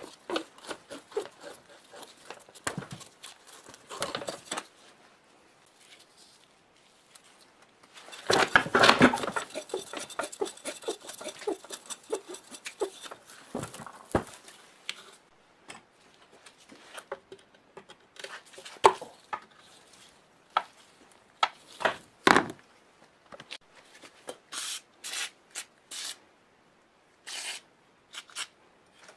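Rusty sheet-metal and cast-iron parts of an old air compressor being handled: scattered knocks, clanks and rubbing, with a loud scraping rub about eight seconds in. Near the end come several short hissing squirts from an aerosol spray can aimed at the rusted bolts.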